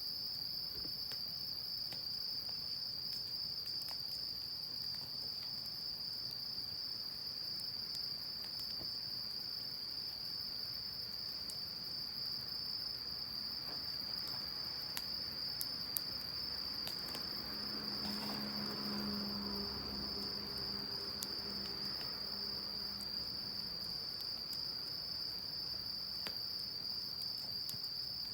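Insects trilling steadily in one unbroken high-pitched note, with scattered faint crackles from a wood bonfire. A low hum swells and fades about two-thirds of the way through.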